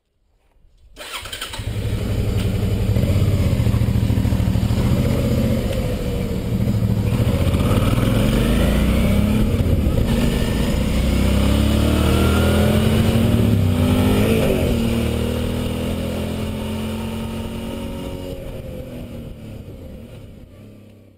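Suzuki DL650 V-Strom's V-twin engine catching about a second in and running, its pitch rising and falling a few times in the middle with the throttle, then fading out toward the end.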